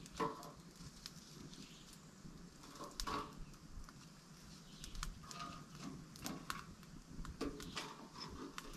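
Small wood fire crackling in a portable metal brazier, with scattered sharp snaps and pops at irregular intervals.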